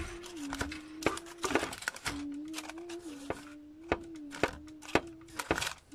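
Hot roasted cauliflower florets being turned on parchment paper in a metal baking pan: crinkling paper and many sharp crackling clicks. Underneath runs a steady low tone that steps up and down in pitch.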